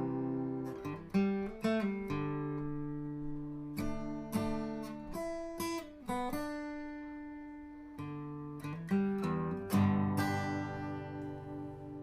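Acoustic guitar music: chords plucked and strummed one after another, each ringing out and fading.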